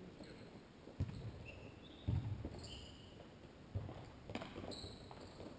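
A futsal ball being kicked and struck on an indoor court: several separate thuds, with short high squeaks of players' trainers on the floor in between, heard faintly from high in a sports hall.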